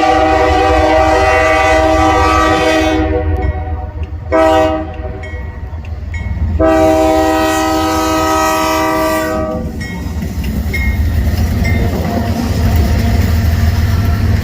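Freight locomotive's multi-chime air horn blowing a long blast, a short one, then another long blast, the closing part of a grade-crossing signal. A low, steady rumble from the train runs underneath.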